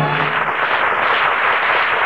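Studio audience applauding, while an orchestral chord ends about half a second in.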